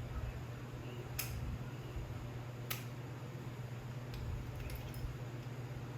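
Two light clicks, about a second and a half apart, from small engine parts being handled, over a steady low hum.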